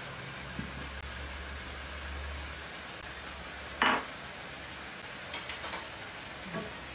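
Diced chicken and yam bean sizzling steadily in a frying pan, stirred now and then with a silicone spatula. A single sharp clink of a plate set down on the counter about four seconds in.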